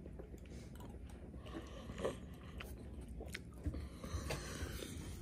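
Close-up chewing and crunching, with irregular sharp clicks and snaps; the loudest come about two seconds in and near four seconds.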